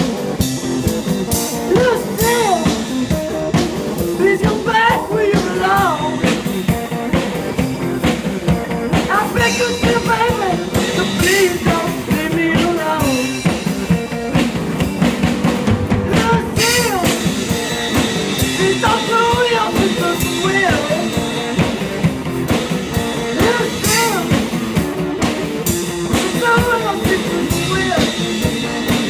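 Live blues-rock band playing: a hollow-body electric guitar and a drum kit, with a man singing.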